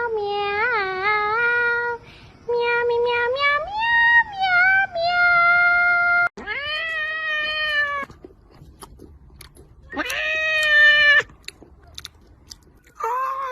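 A cat yowling in long, drawn-out meows whose pitch wavers and slides. The calls run almost without a break for the first several seconds, then come as separate calls with quiet gaps between.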